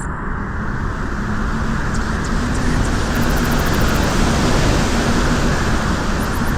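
Wind blowing on a beach: a dense, steady rushing noise that swells gradually to a peak about halfway through and then eases a little.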